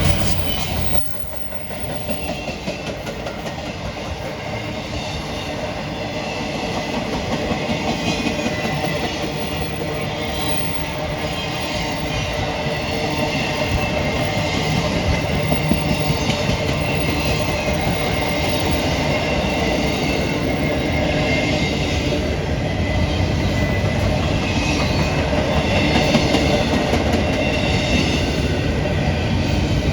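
CSX freight train rolling past: steady rumble and clatter of steel wheels on the rails, with a faint high wheel squeal, growing slowly louder after a brief dip about a second in.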